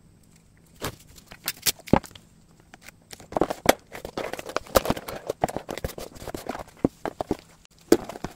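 Brown packing tape being peeled off its roll and pulled across a cardboard box, with a crackling, ripping noise through the middle few seconds. Scattered knocks and clicks of hands on the tape roll and cardboard come before it, and a few more near the end.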